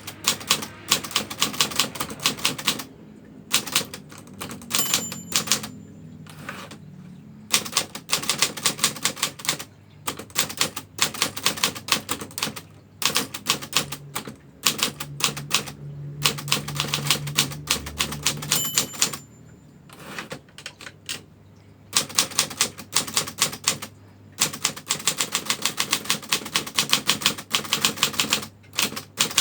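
Old Brother manual typewriter being typed on: quick runs of sharp key strikes broken by short pauses. A brief high ring sounds twice, each followed by a longer pause in the typing.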